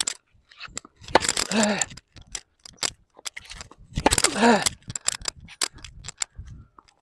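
Tennis racket striking the ball on forehand drives twice, about a second in and about four seconds in, each hit paired with the player's short grunt that drops in pitch. Fainter knocks of the ball and footsteps fall between the hits.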